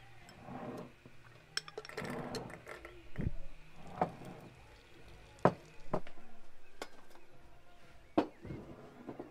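A series of sharp clinks and knocks, about six spread over several seconds, as glass and metal tea things are handled at a samovar.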